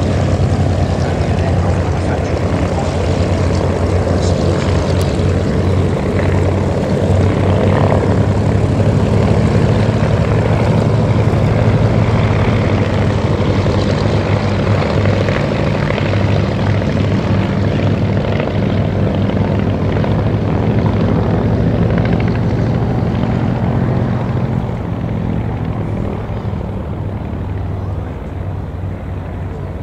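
Piston engines and propellers of two vintage biplanes, a de Havilland DH.51 and a Southern Martlet, droning steadily as they fly past together. The sound fades somewhat over the last few seconds.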